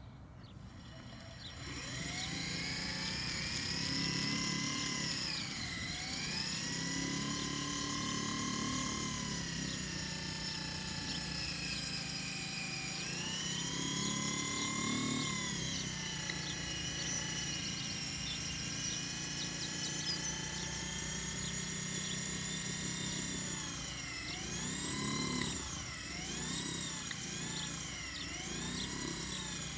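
BullX Deluxe lure machine's motor running, hauling the continuous loop of lure line around its spool: a whine that dips and rises in pitch as the speed changes. It starts about a second in and wavers up and down more often near the end.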